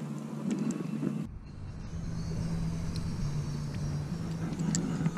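Steady low hum of a small motor, with light clicks and knocks over it. About a second in the background changes abruptly: a lower rumble comes in under a single steady hum.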